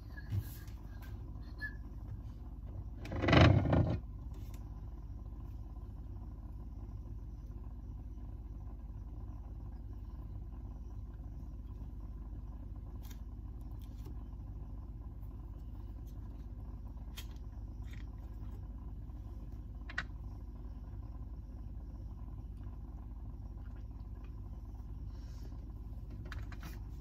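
Steady low hum of an open refrigerator running, with a loud rustle of plastic packaging about three seconds in and a few faint clicks later on.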